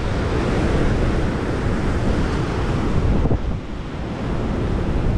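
Wind buffeting the camera microphone over the wash of ocean surf, a steady rushing noise heaviest in the low end; the wind eases for about a second a little past three seconds in.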